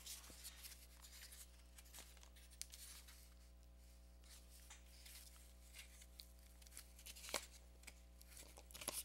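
Faint clicks and rustles of plastic snap cubes being handled and pressed into the cups of a cardboard egg carton, with a slightly louder click about seven seconds in and a few more near the end.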